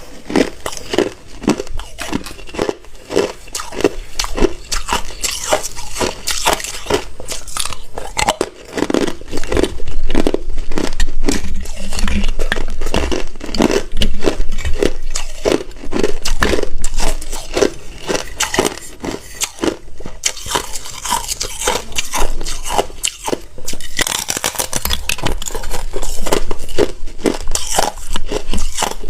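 A person biting and chewing hard ice close to the microphone: dense, rapid crunching and cracking, many sharp cracks a second, a little louder from about nine seconds in.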